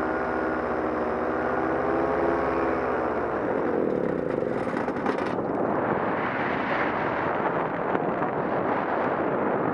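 Solo 210 two-stroke paramotor engine and propeller running, then its pitch sags and it dies about three seconds in, the sign of the one-litre fuel load running out. After it stops only a steady wind rush is left as the paramotor glides.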